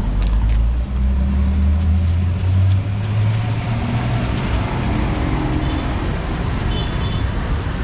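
Road traffic close by: a vehicle engine running and rising in pitch over the first few seconds, then a steadier rumble. Under it, the scrape of a stone pestle grinding peanut sauce in a stone mortar.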